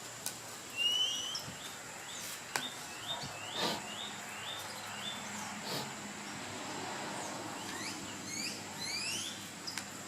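Small birds chirping in quick series of short rising and falling notes, in several bursts, with a few light clicks and knocks in between.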